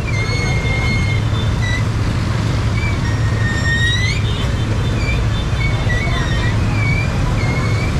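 Street traffic: a steady low engine rumble, with high wavering tones coming and going over it.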